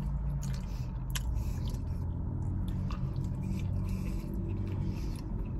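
A person chewing a mouthful of Burger King Quadruple Stacker burger, with a few faint wet clicks of the mouth, over a steady low hum.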